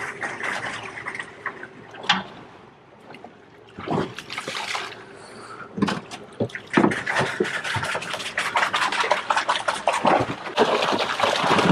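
Water splashing and sloshing at the boat's side as a hooked tuna is hauled in hand over hand on the line, with sharp knocks among the splashes. The splashing is busiest and loudest in the second half.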